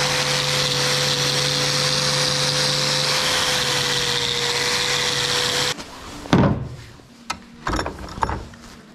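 Bosch angle grinder with a wire wheel brush running steadily at one even pitch while brushing a small metal part, then cutting off abruptly about six seconds in. A few sharp knocks and clanks of metal follow as the tool and parts are handled.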